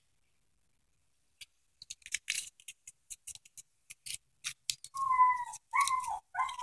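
Crinkling of a paper candy wrapper: a run of sharp, uneven crackles. Near the end come three short, high, squeaky sounds, each falling in pitch.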